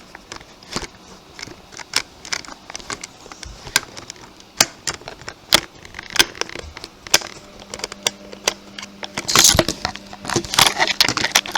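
Irregular sharp clicks and scrapes of a cross-head screwdriver working the screws of a plastic toy train engine, with louder clustered clicks near the end. A faint steady hum joins about halfway through.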